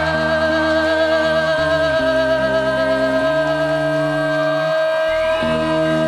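Live country band with a female lead singer holding one long note with vibrato over bass, drums and electric guitars.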